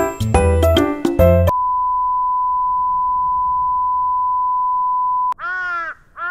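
Tinkly plucked background music that stops about a second and a half in, giving way to a steady, single-pitched electronic beep that holds for nearly four seconds. Near the end, two drawn-out calls follow, each rising and then falling in pitch.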